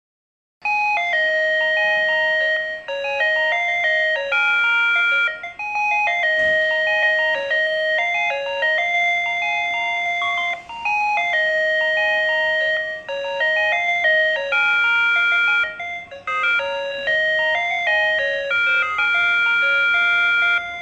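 PATLITE electronic platform annunciator playing its signal-clear tone, a looping electronic chime melody of clean steady notes. It tells a one-man train's crew that the departure signal has cleared. It starts about half a second in.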